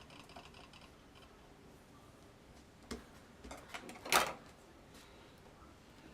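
Bone folder and hands working over glued card stock: faint scratchy rubbing, a click about three seconds in, and a louder short scrape just past four seconds.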